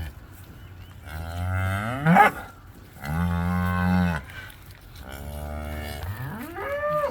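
Cattle mooing: four calls in a row. The first rises into a loud high bawl about two seconds in, the second is a steady low moo, the third is fainter, and the last rises in pitch near the end.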